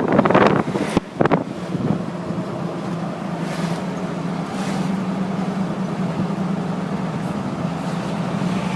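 Steady drone of a moving vehicle heard from inside: engine hum and road noise at a constant pitch. Wind buffets the microphone in the first second or so.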